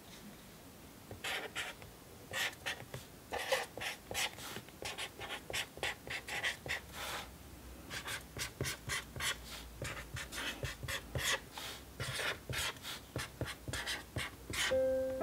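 Pen writing on a sheet of paper over a pad: quick scratchy strokes in short irregular runs, starting about a second in. Piano music begins right at the end.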